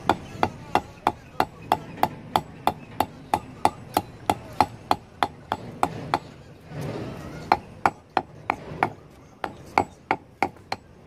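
Hammer striking a cast lead rod laid on a stone slab, sharp knocks at about three a second, shaping the lead for fishing sinkers. The blows pause for about a second a little past the middle, then carry on at the same pace.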